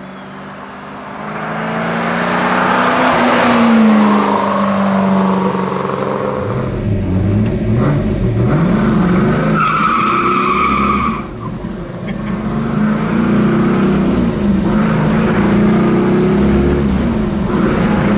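1968 Oldsmobile 442 W-30's 400 cubic-inch V8 driving up and passing by, its engine note swelling and then falling away. Then, heard from inside the cabin, the V8 pulls through the gears of its four-speed manual, revving up and easing off several times.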